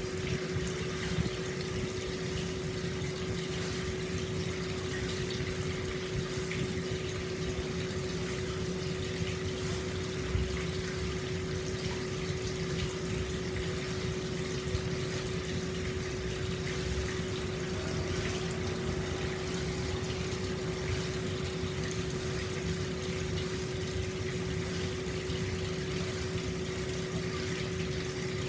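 Hot spring water flowing steadily into an open-air bath, an unbroken rushing with a steady hum underneath.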